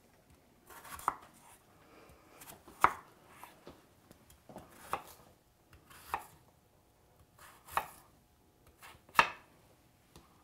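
Chef's knife cutting through a raw potato and knocking on a wooden cutting board. About six sharp chops come one every second or so, with softer taps between.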